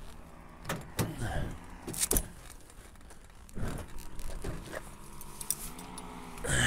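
Metal clinking and rattling from a paramotor frame and harness as the pilot walks with it on his back, in a series of sharp clicks. An engine drones steadily underneath, rising in pitch near the end.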